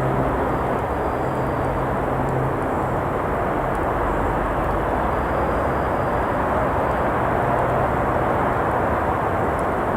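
Steady roar of traffic on a nearby road, with one vehicle's engine hum dying away about two and a half seconds in. Faint scattered crackles from a wood campfire sit under the traffic.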